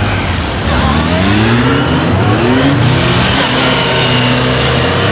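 Honda police motorcycle engine revving up and easing off again and again as the rider accelerates out of one tight corner after another; the pitch rises several times.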